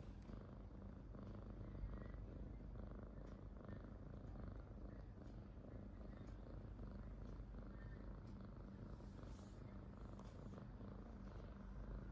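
A sleeping cat snoring faintly.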